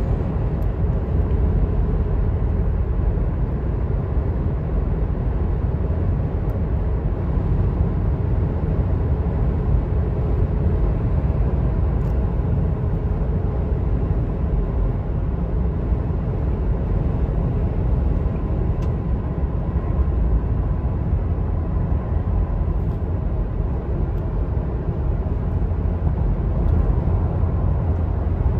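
Inside the cab of a 2011 Toyota FJ Cruiser cruising at about 60 mph: a steady low rumble of road, tyre and engine noise, with the 4.0-litre V6 turning at about 2,000 rpm.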